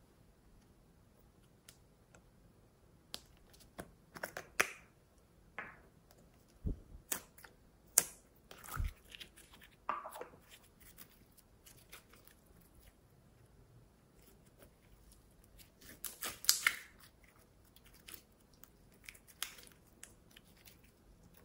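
Glossy slime and its plastic container handled by hand: scattered sticky clicks, crackles and small pops, the loudest bunched in short clusters a few seconds apart, as the slime is pulled from the container and stretched.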